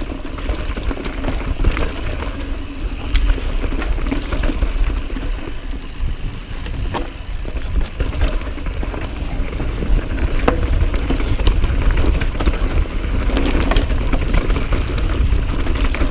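Commencal Meta V4 mountain bike descending a dry, loose dirt trail at speed: tyres rushing and crunching over dust, with scattered clicks and rattles from the bike over bumps. Wind rumbles on the camera microphone throughout.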